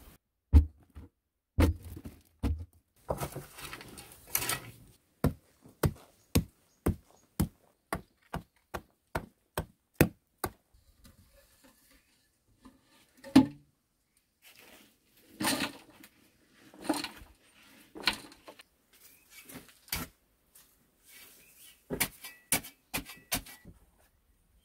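Hand-tool work: a run of sharp knocks, about two a second for several seconds, with a heavier single blow and stretches of scraping in between, then a last cluster of quick knocks near the end.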